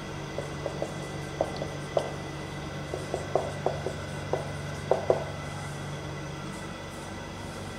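Marker writing on a whiteboard: a quick run of short taps and scrapes from the pen strokes, stopping about five seconds in, over a steady room hum.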